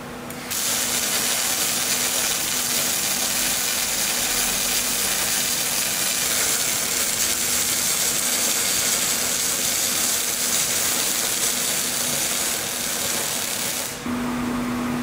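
MIG/MAG welding arc from a Uranos 2000 SMC running a lap weld on 3 mm carbon steel at about 150 amps and 23 volts, with raised voltage and inductance for a softer, wider arc. It is a steady, dense hiss that starts about half a second in and stops suddenly near the end, leaving a steady low hum.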